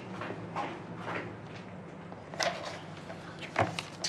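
Quiet room tone with a handful of soft, short clicks and rustles about a second apart.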